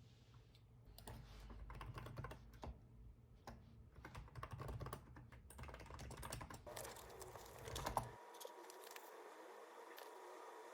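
Typing on a computer keyboard: a quick, irregular run of key clicks that stops abruptly about eight seconds in, leaving a faint steady hum.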